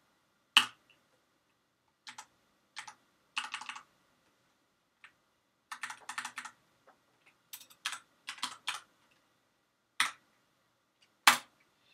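Computer keyboard being typed on: short irregular runs of key clicks with pauses between them, as a terminal command is edited. A single sharp, louder key strike near the end, the loudest of all, is the Enter key sending the command.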